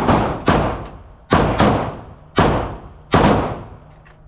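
About six 9mm pistol shots fired in quick, uneven succession. Each crack rings off the walls of an indoor range, and the shots end a little past three seconds in.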